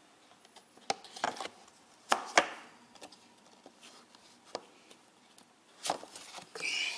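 Handling noises from a Blu-ray set's cardboard digipak and a disc: a few separate sharp clicks and taps with light rubbing between them, the loudest pair about two seconds in.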